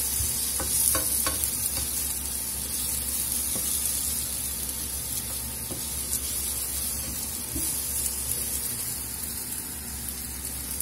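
Sliced courgettes and onions sizzling steadily as they fry in a non-stick frying pan. A few light scrapes and knocks of the stirring utensil come in the first second or so.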